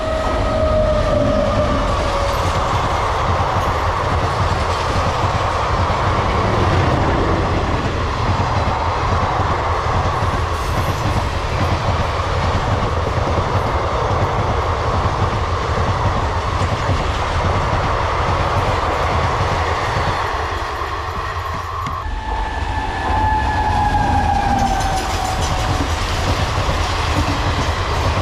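Indian Railways electric train running past with a steady loud rumble and wheels clattering over the rail joints. A horn sounds at the start, its pitch falling. The sound changes abruptly about 22 seconds in, and another horn blast follows, its pitch dropping slightly.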